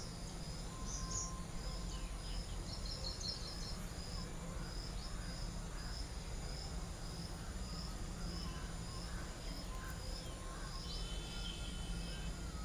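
Open-air ambience: a steady low rumble with a high, short chirp repeated evenly about every half second, like an insect or bird, and a few brief bird chirps, one near the end.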